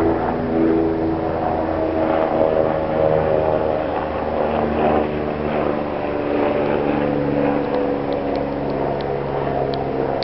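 Civil-defence siren sounding the all-clear (Entwarnung) signal, a long held tone that slowly falls in pitch as the siren winds down.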